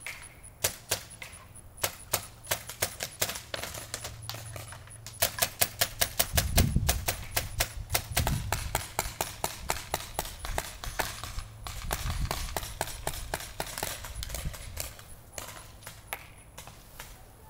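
Paintball markers firing: sharp pops, sometimes in quick strings of several a second and sometimes single shots spaced apart.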